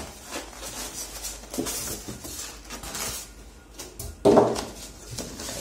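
Rustling and scraping of cardboard, polystyrene foam packing and plastic film as a monitor is unpacked from its box, with one louder, short pitched squeak a little over four seconds in.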